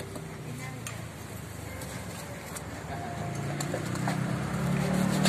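A few light knocks of a cleaver on a wooden chopping block over steady street-stall background noise, with a low hum that grows louder over the second half.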